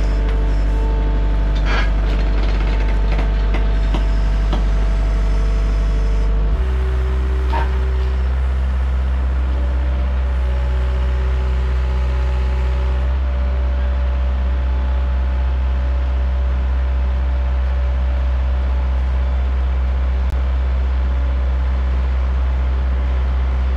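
Diesel engines of compact track loaders, including an IHI CL35, running steadily at working revs while carrying a garage on their forks. The engine note shifts about six and a half seconds in.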